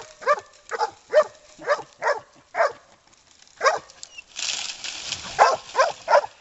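A hog-hunting dog barking in quick sharp barks, about two a second, as it bays a wounded wild boar. It pauses about two thirds of the way through, there is a short rasping noise, and the barking then starts again.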